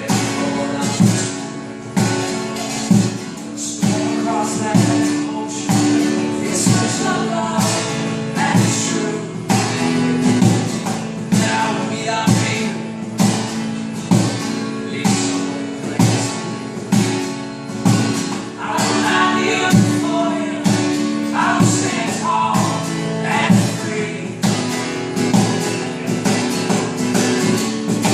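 A band song with guitar, a steady percussive beat and singing.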